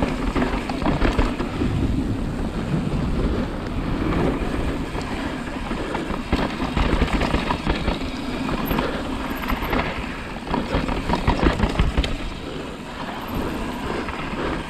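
Downhill mountain bike ridden fast over a dirt and rock trail, heard from a camera on the bike: tyres rumbling and crunching on loose dirt, with frequent rattles and knocks from the bike over the bumps.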